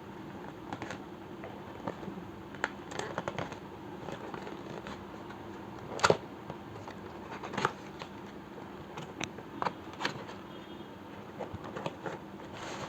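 Cardboard hair-dryer box being opened and its contents handled: scattered scrapes, rustles and light taps, the sharpest about six and seven and a half seconds in.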